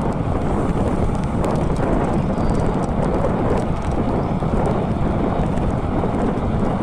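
Wind buffeting the microphone of a camera on a moving mountain bike: a steady, loud, low rushing noise.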